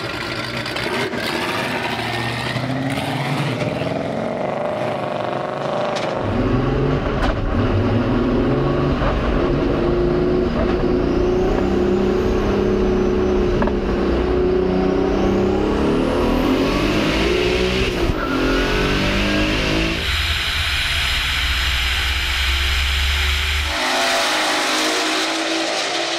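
Twin-engine, twin-turbo VR6 Volkswagen Golf at full throttle. The engine note climbs in pitch and drops back several times as it shifts up through the gears, then changes character near the end.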